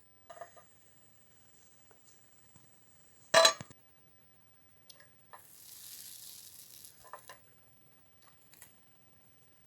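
Pots and utensils being handled during camp cooking: scattered light clicks and knocks, one loud ringing metal clank about three and a half seconds in, then a hiss lasting about a second and a half.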